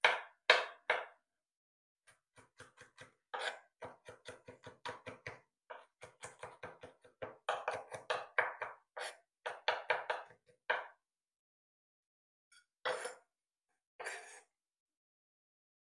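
Kitchen knife chopping garlic on a wooden cutting board: a quick, uneven run of knife strokes on the board, then a pause and two more strokes near the end.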